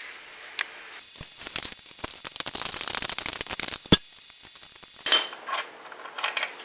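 Ratchet wrench clicking rapidly for about three seconds while a motorcycle muffler bolt is worked loose, then a few sharp metallic clinks of tools and bolt.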